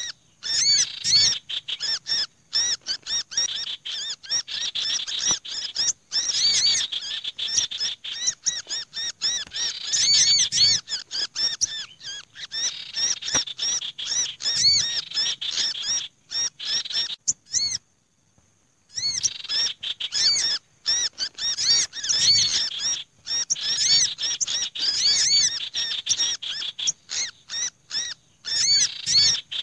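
Bird-lure recording of small songbirds calling in an agitated, noisy mix, mainly olive-backed sunbird and black-naped monarch calls, meant to sound like birds caught in a trap so that wary small birds come down. Dense, rapid, high chirps and scolding notes with a pause of about a second a little past halfway.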